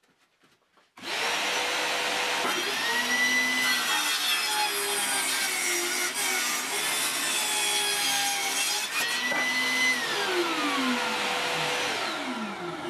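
Homemade table saw driven by a 1400 W Status SP190PL circular saw motor, with its original 190 mm blade. It starts about a second in, rising in pitch, then rips a pine board with its pitch lower and changing while it cuts. It runs free again briefly, then winds down with a steadily falling whine after switch-off. A shop vacuum for dust extraction keeps up a steady rushing noise under it.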